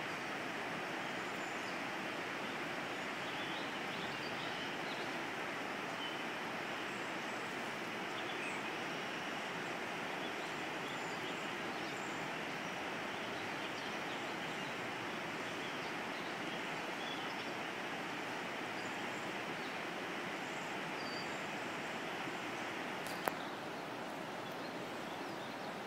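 Steady rush of a shallow river running over riffles, with faint bird chirps above it and a single sharp click near the end.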